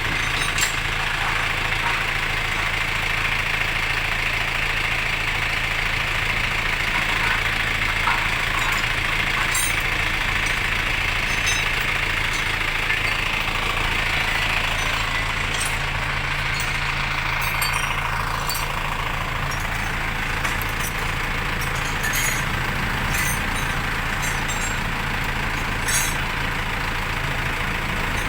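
An engine running steadily at idle, with a hiss over it and scattered light metallic ticks.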